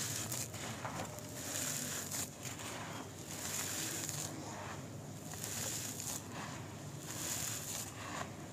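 Hands scooping and crumbling dry, gritty dirt with small lumps. The clumps crunch as they break apart, and loose soil pours back onto the pile, in repeated waves of crunching and trickling.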